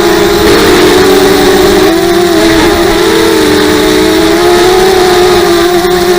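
Strong wind howling, a loud, continuous moaning tone that wavers slowly up and down in pitch over a steady hiss.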